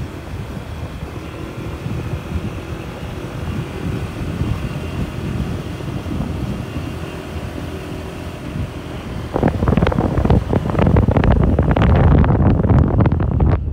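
Motorcycle engine running on the move, with wind rushing over the microphone. About nine seconds in the noise turns louder and rougher, with a dense rumbling and knocking.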